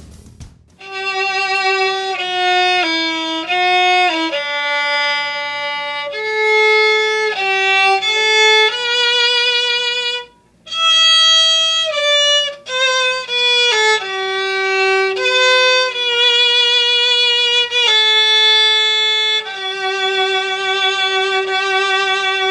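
Background music: a solo violin playing a slow melody of held notes with vibrato, with a brief pause about ten seconds in and a long held note near the end.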